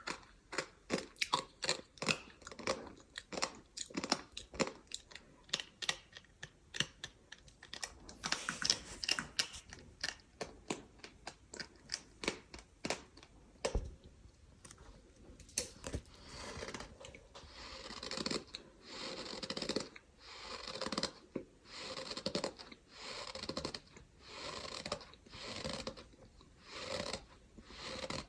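Close-up chewing of a gritty, crunchy material such as sand. For about the first half it is dense, quick crunching; then it settles into slower, even chews about one a second.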